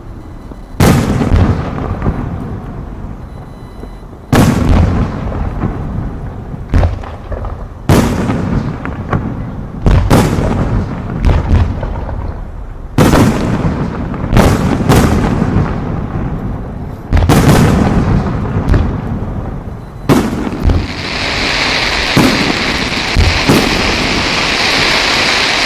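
Aerial fireworks shells bursting, one loud boom after another every second or few, each trailing off in a rumble, sometimes two close together. From about four-fifths of the way through, a steady high crackling hiss sets in under the booms.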